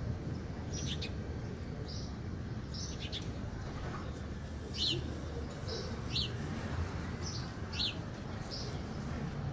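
Small birds chirping: short, high chirps, some dropping quickly in pitch, coming about once a second over a steady low hum.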